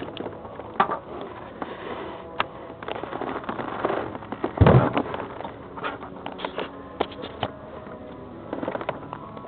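Close handling noise in a race car cockpit: a sleeve rubbing and brushing against the onboard camera, with scattered clicks and knocks and one heavy thump about four and a half seconds in.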